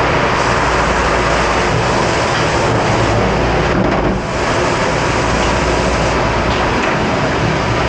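Commercial pre-rinse spray nozzle blasting water onto a plastic cutting board in a stainless steel dish sink: a loud, steady hiss of spray, with a brief drop about four seconds in.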